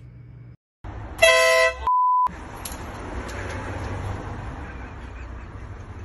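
A handheld air horn gives one short, loud blast about a second in. A brief flat beep tone follows right after it, and then steady outdoor background noise.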